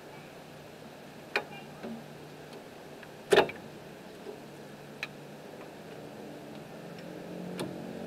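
New brake pads being worked and seated into a car's caliper bracket: four sharp clicks of the pads and their clips, the loudest about three and a half seconds in.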